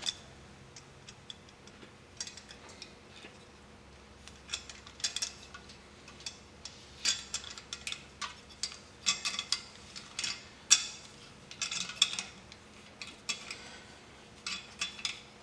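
Scattered light metal clicks and clinks as a compressor fitting is handled and threaded on by hand over freshly applied pipe thread sealant.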